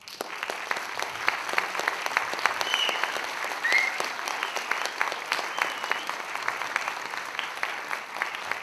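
Audience applauding: the clapping breaks out suddenly and keeps going steadily.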